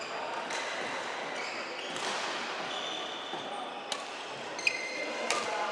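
Badminton rally on an indoor court. In the second half there are sharp racket strikes on the shuttlecock and short high squeaks of court shoes on the floor, over a steady hall murmur.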